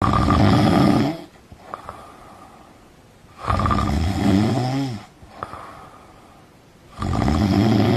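A person snoring loudly: three long snores about three and a half seconds apart, with quiet between them.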